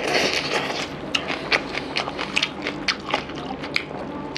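Close-miked mouth and hand eating sounds: crisp crunching bites of raw spring onion and wet chewing, with the squish of fingers mixing rice and fish curry. A dense crunch near the start, then many short sharp clicks.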